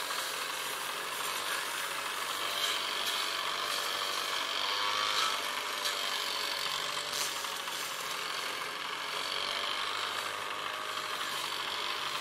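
CHAMP YTO454 farm tractor's diesel engine idling steadily with a rasping rattle, with a few light clicks.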